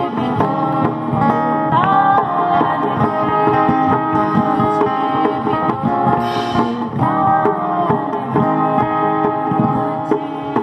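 Harmonium and dholak playing a Hindi song, the harmonium holding long reedy chords over a steady hand-drum beat. A woman's voice sings held notes over them at times, with rising slides.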